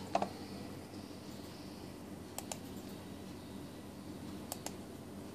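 Sharp clicks: one just after the start, then two quick pairs of clicks about two seconds apart, over a faint steady hum.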